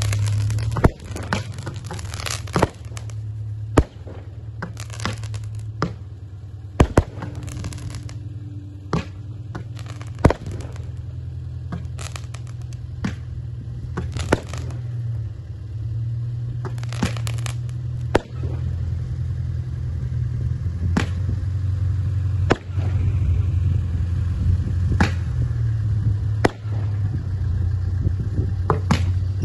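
Fireworks shots fired from a multi-tube launcher mounted on a homemade tracked robot vehicle: a string of sharp, irregular bangs and pops, a second or more apart, over a steady low hum.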